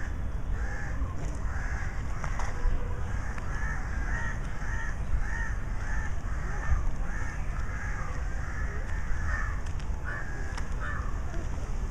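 Crows cawing over and over, about two short calls a second, with a steady low rumble underneath.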